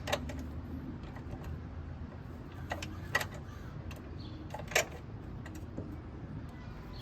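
A wrench clicks against the car battery's fittings as he works loose its hold-down and terminal nuts: four sharp, scattered clicks, the loudest near the middle and about five seconds in, over a steady low hum.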